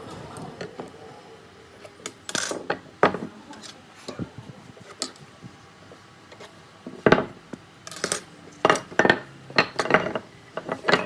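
Irregular knocks and metallic clinks of workshop tools and pieces being handled. They are scattered at first and come more often in the second half.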